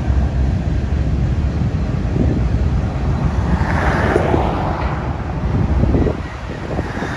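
A slow-moving freight train's cars rolling past with a steady low rumble, with wind buffeting the microphone. A swell of higher hiss comes about four seconds in.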